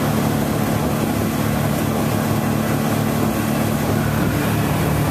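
Small fishing boat's engine running steadily under way, with wind and water rushing past the hull.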